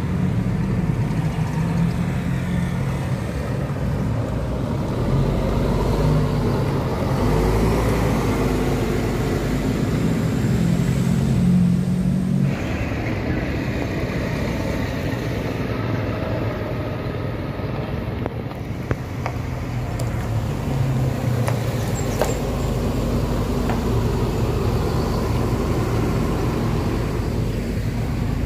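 Road traffic at a bend: the diesel engines of large intercity buses running as they take the corner, along with a passing motorcycle and car. The engine sound is steady and shifts abruptly about halfway through.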